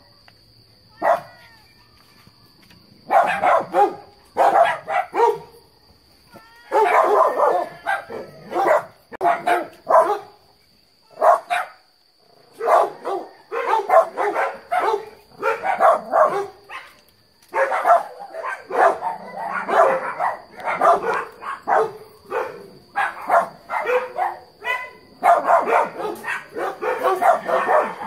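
Dogs barking: a few single barks, then near-continuous barking from about three seconds in, raised at wild pigs rooting nearby. A faint steady high-pitched tone runs underneath.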